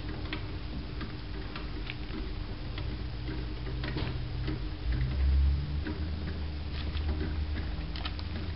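Pet rodents moving about in a wire cage: scattered, irregular light clicks and scratches in the bedding, over a steady low hum. A louder low rumble comes about five seconds in.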